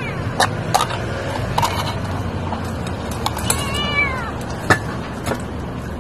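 Tiny hungry stray kitten crying: the end of one arching meow at the start and a second meow about two-thirds of the way through. Between the cries come sharp metal clinks as wet food is scraped from a can into a steel bowl.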